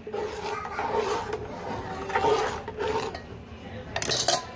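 Stirring and scraping in a steel bowl of thin, watery chutney: an irregular rasping rub, with a louder rasp about four seconds in.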